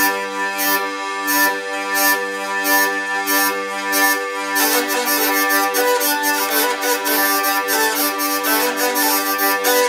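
Marco Gamarra G/C tenor hurdy-gurdy playing a lively folk tune: a steady drone under the keyed melody, with regular rhythmic strokes that become quicker and busier about halfway through.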